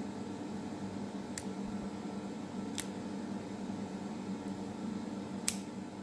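Millers Forge scissor-style dog nail clipper snipping thin slices off a dog's claw: three sharp snips, about 1.4, 2.8 and 5.5 seconds in, over a steady low hum.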